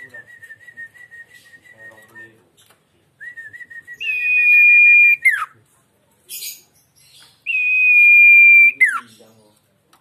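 Caged sirtu songbird singing long drawn-out whistles: first a wavering whistle held about two seconds, then two loud, steady, higher whistles of about a second each, each ending in a quick downward slur, with a short harsh hiss between them.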